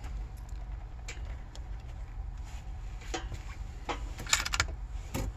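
Scattered light clicks and knocks from handling a rifle and earmuffs at a shooting bench, with a quick run of clicks about four seconds in, over a steady low hum.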